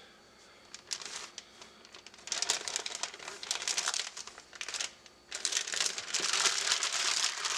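Plastic bag crinkling as chicken legs are mixed around in marinade inside it. It comes in spurts, faint at first and busier and louder from about five seconds in.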